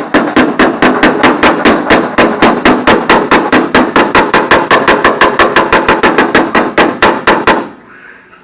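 Body hammer striking a welded sheet-steel fender patch against a dolly held behind it, a fast even run of ringing metallic blows, about five a second, to smooth the joint; the hammering stops about seven and a half seconds in.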